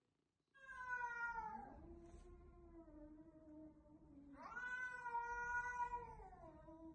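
A cat meowing: two long, drawn-out meows, the first starting high and sliding down, the second rising and then falling in pitch.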